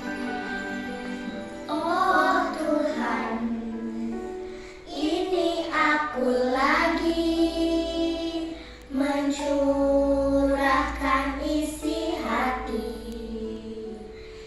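Children singing a song over an instrumental backing; the voices come in about two seconds in after a short instrumental passage, then carry on in phrases with brief breaks between them.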